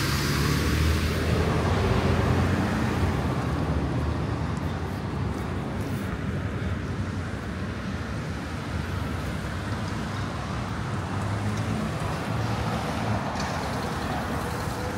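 City street traffic: a large vehicle's engine runs low and loud for the first few seconds, then settles into a steady wash of passing cars.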